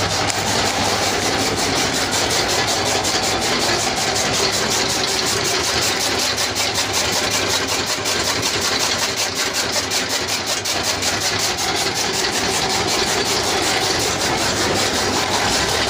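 Motorized chaff cutter with a spoked flywheel running steadily and chopping green fodder stalks: a continuous mechanical whirr with a rapid, even chopping rhythm.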